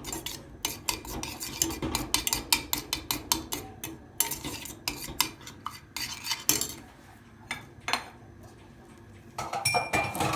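A spoon stirring and clinking against a small pan of goat butter and olive oil heating on a gas burner: quick repeated clinks for about six seconds, then only a few.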